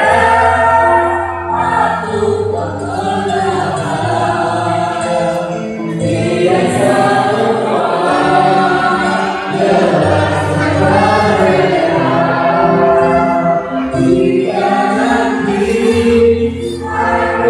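A choir singing held notes over an accompaniment with long, low bass notes.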